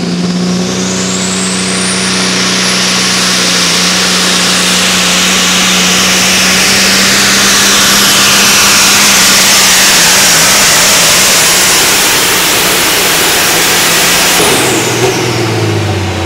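Pro stock semi truck's turbocharged diesel engine run flat out, pulling a sled, with a high turbo whine that climbs in the first two seconds and then holds steady over a loud, even engine note. About fourteen and a half seconds in, the throttle comes off: the whine winds down and the engine drops toward idle at the end of the pull.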